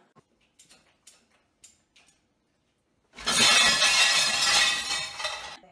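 A few faint light clicks, then about three seconds in a sudden loud crash and clatter that lasts about two and a half seconds before dying away.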